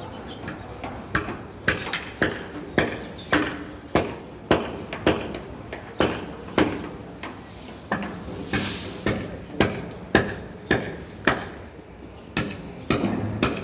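Rhythmic sharp knocks, about two a second, like steady blows of a striking tool on a hard surface, with a brief hiss about eight and a half seconds in.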